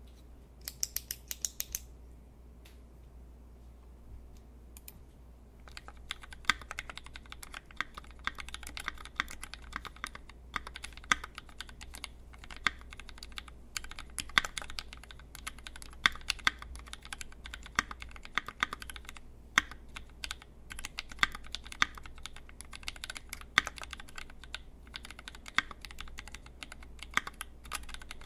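Typing on a custom mechanical keyboard: lubed Tangerine linear switches with Cherry top housings in a brass plate, under GMK keycaps. A quick run of sharp, bright clicks comes about a second in. Then a few seconds pass with only a couple of isolated clicks, and steady continuous typing follows from about six seconds on.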